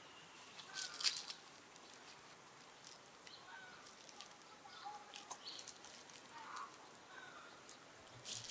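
A baby macaque biting and handling a rambutan fruit: short crackling clicks in a few small clusters, with faint short chirps between them.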